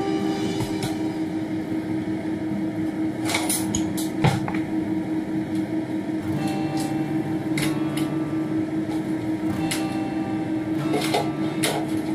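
Kitchen range hood fan running with a steady hum, over a handful of sharp metal clinks of cookware, the loudest about four seconds in.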